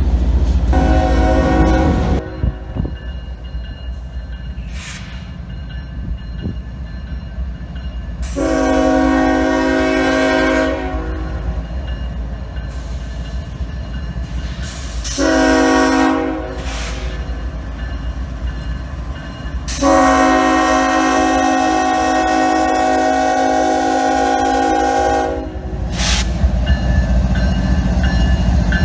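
Freight train rolling by with a low rumble and a brief multi-note air horn blast about a second in. Then Norfolk Southern diesel locomotives sound their horn for a grade crossing: a long blast, a short one and a final long blast of about five seconds. Near the end the locomotives pass close with a heavy engine rumble.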